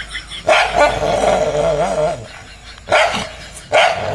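A dog barking at its own reflection in a mirror: three loud barks, about half a second in, near three seconds and just after, the first drawn out for over a second.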